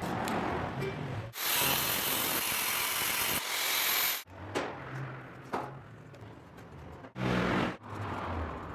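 Workshop power tools cutting or grinding in short stretches that change abruptly, with steady noisy passages and a few sharp clicks between them.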